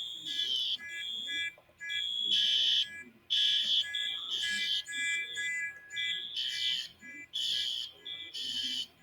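School fire alarm system sounding its evacuation tone in a temporal-three pattern: three high-pitched tones about a second apart, then a short pause, repeating.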